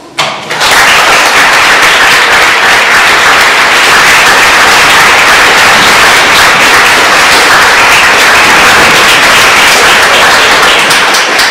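Audience applauding loudly; the clapping breaks out suddenly about half a second in and keeps up as a dense, steady patter.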